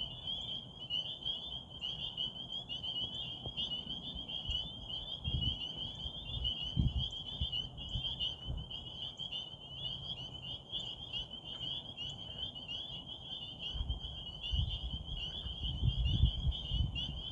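Chorus of many frogs calling at a pond, a dense high-pitched trilling that never lets up. Bursts of low rumbling come in about five seconds in and again near the end.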